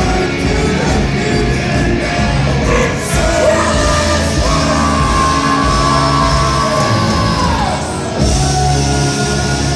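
Live rock band playing loud with electric guitars, bass, drums and sung, shouted vocals. About halfway through, a long high note is held and slides down, and the full band comes back in a moment later.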